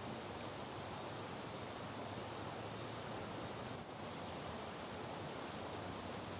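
Steady rushing of a river's fast current, an even hiss with no distinct events.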